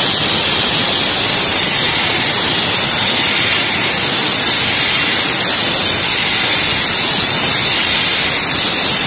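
Spray-welding gun running, a loud, steady hiss with no breaks as it sprays metal onto a crankshaft journal to build it back up.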